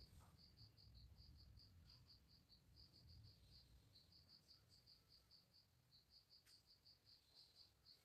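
Faint cricket chirping: an even run of short, high chirps, several a second, over a faint low rumble of room tone.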